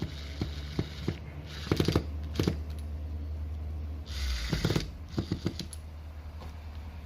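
Handling of a cordless impact wrench's parts and plastic housing during reassembly: scattered clicks and knocks with short stretches of scraping and rubbing, over a steady low hum.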